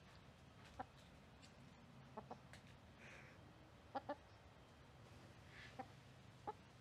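Hen giving short, soft clucks about once a second or two, a couple of them in quick pairs.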